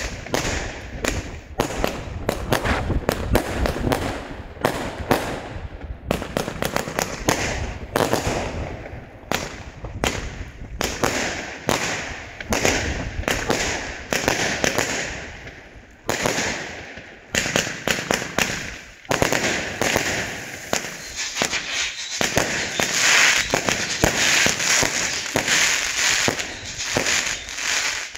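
Consumer firework cake firing a long rapid volley: shot after shot of launch thumps and aerial bursts. In the later part the shots run together with a dense hissing crackle of bursting stars.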